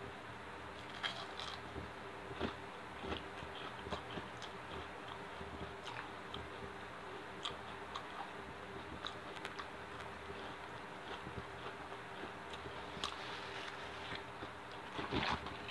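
A person chewing and biting food close to the microphone: soft, irregular crunches and mouth clicks over a faint steady hum.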